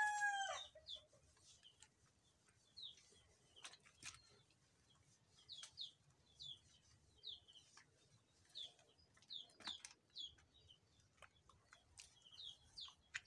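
Small birds chirping faintly, short high chirps repeated at irregular intervals. The falling tail of a rooster's crow fades out in the first second.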